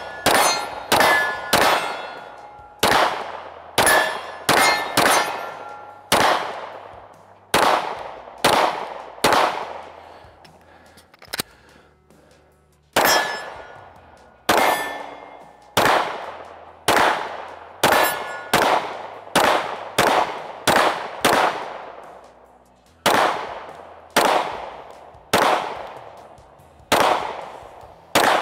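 Springfield Armory Echelon 9mm pistol fired in a long string of shots, one to two a second, with a short break a little before the middle. Many shots are followed by a ringing metallic clang, like steel targets being hit.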